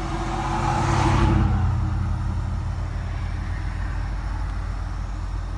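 Steady low rumble of a road vehicle, with a rushing swell that builds and fades about a second in.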